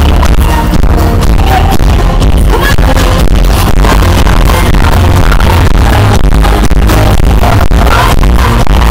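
Loud live electronic pop music played through an arena sound system, with a heavy, steady bass beat.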